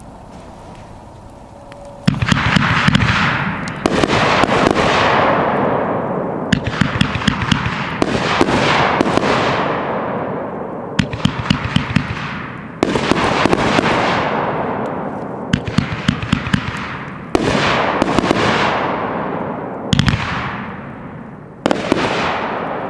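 A 500-gram consumer firework cake firing shot after shot, starting about two seconds in. The shots come mostly in pairs about two seconds apart, and each is followed by a burst of crackling and a fading hiss.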